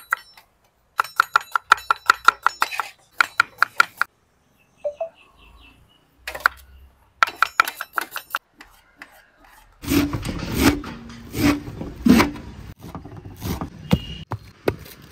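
Kitchen knife chopping in quick bursts, the strikes coming about seven a second with a metallic ring. From about ten seconds in a steady rushing noise sets in, with a few louder knocks.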